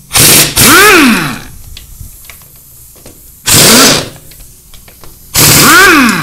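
Power impact driver run in four short bursts, each rising and falling in pitch, undoing the bolts of a motorcycle engine's clutch-side cover.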